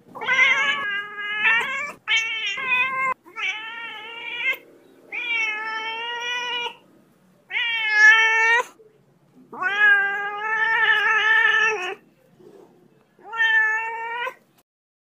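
A young kitten mewing over and over: about eight high, drawn-out cries with short gaps between them. The longest lasts about two seconds.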